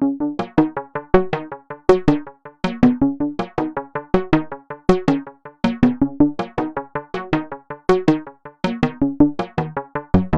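Lively synthesizer tune in an 80s–90s style, made of short, quickly decaying keyboard notes, several a second, over a bouncing bass line.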